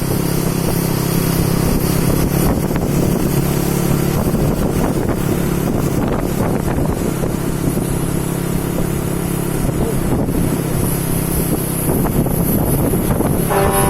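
Bus engine running steadily, with wind on the microphone. Just before the end, the bus's multi-tone telolet horn starts playing.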